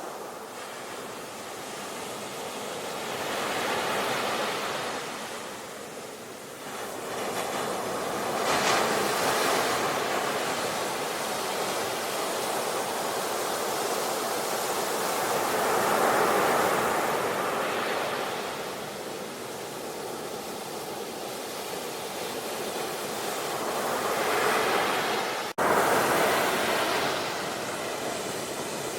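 Ocean surf: waves breaking and washing up the shore in slow swells of hiss, each rising and falling over several seconds. The sound drops out for an instant about three-quarters of the way through, then comes back loud.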